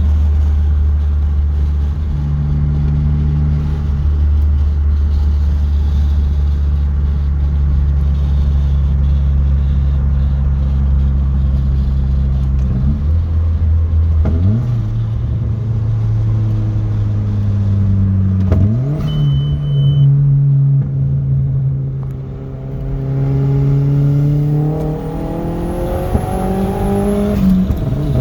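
Audi B5 A4 1.8T turbocharged inline-four, with a K04 turbo and a custom tune, running: a steady low drone, then the engine note steps up in pitch a few times. Near the end there is a longer climb that drops off suddenly. This is the engine the owner says has some misfiring.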